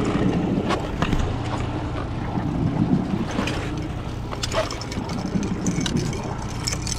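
Suzuki outboard motor running with a steady low hum, under wind noise on the microphone and scattered knocks of gear being handled on the boat.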